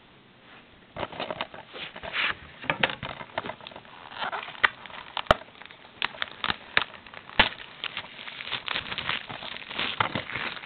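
A new plastic DVD case being opened: its plastic wrapping crinkles and crackles, mixed with many sharp clicks and taps from the case. The handling starts about a second in.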